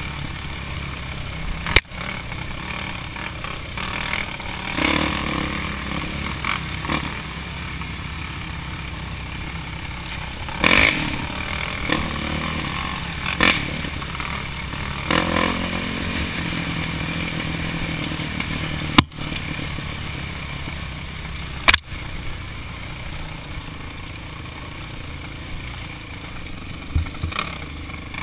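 ATV engine running steadily while riding a rough, rocky dirt trail, with rattling and bursts of wind and trail noise. Three sharp knocks on the camera, at about 2, 19 and 22 seconds in.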